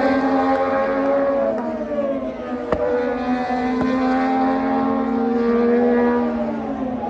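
Several Moto2 race motorcycles, each with a Triumph 765 cc three-cylinder engine, running together through a corner. Their engine notes overlap, sliding down and back up in pitch as the throttle is shut and opened again. A single sharp pop comes about two and a half seconds in.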